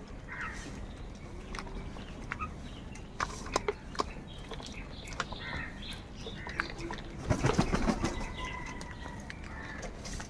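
Birds at a feeding spot: scattered sharp clicks and short calls, with a loud flurry about seven and a half seconds in that may be wings flapping.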